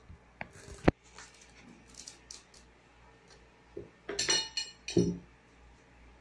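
Knife tapping and clinking against a plate while a cake is cut, with one sharp click about a second in and a few light ticks after it. Two short pitched sounds come about four and five seconds in.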